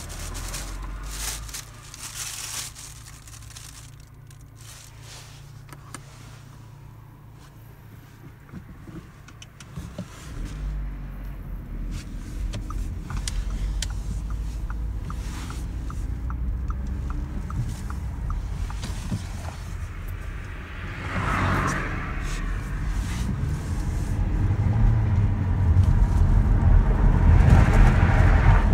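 Inside a moving car: plastic carrier bags rustle at the start, then the engine and road noise come up as the car pulls away. For several seconds in the middle a turn indicator ticks about twice a second. The engine and road noise grow louder toward the end as the car gathers speed.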